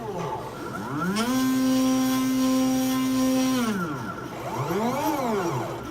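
Stepper motors of a homemade lead-screw CNC machine moving its axes: a pitched whine that rises as the axis speeds up, holds steady for about two seconds, and falls as it slows. About four and a half seconds in, a short move rises and falls again without a steady stretch.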